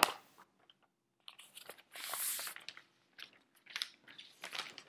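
Clear protective plastic film being peeled off the back of a new iPad Air, crackling and crinkling. A sharp click at the very start, and a longer rasping peel about two seconds in.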